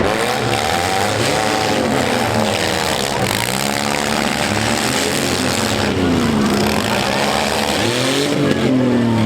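Engines of several compact demolition-derby cars revving at once, their pitches rising and falling and overlapping, with a strong rev swelling and dropping near the end.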